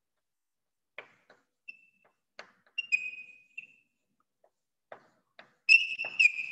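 Chalk writing on a blackboard: short taps and scratches of the chalk strokes, mixed with high-pitched chalk squeaks that grow longer and louder near the end.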